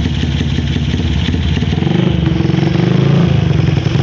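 Honda GL single-cylinder four-stroke engine running through a Kawahara aftermarket racing muffler: a steady, rapid pulsing exhaust note that gets a little louder about halfway through.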